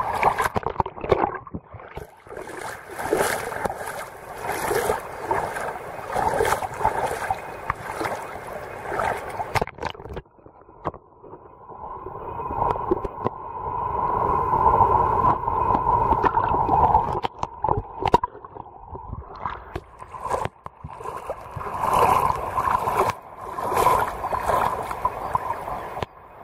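Shallow seawater sloshing and gurgling against a camera held at the surface, in irregular surges. For several seconds in the middle the camera is under water and the sound turns muffled, losing its top end.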